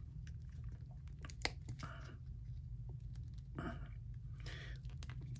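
Hands handling a plastic Marvel Legends Iron Man action figure while swapping its head: faint plastic clicks and rustling, with one sharper click about a second and a half in, over a low steady hum.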